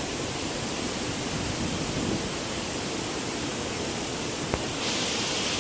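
Waterfall rushing steadily, an even roar of falling water that turns a little brighter in its hiss near the end.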